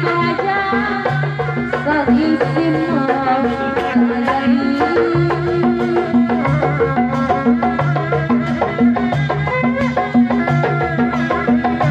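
Live Sundanese ensemble playing tepak tilu accompaniment. Drums keep a steady rhythm over repeating low gong tones, with a wavering melody line above.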